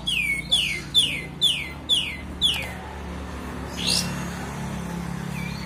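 Olive-winged bulbul (kapas tembak) calling: six quick downward-slurred notes about half a second apart, then a single rising note about four seconds in. A low steady hum runs underneath.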